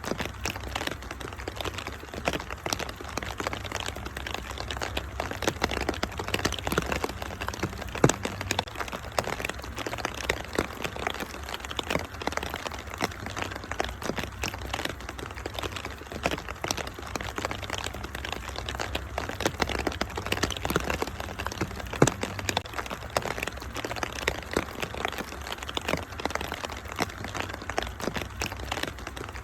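Wood fire crackling and popping, with many small irregular snaps over a steady hiss and a low rumble. Two sharper pops stand out, about eight seconds in and near twenty-two seconds.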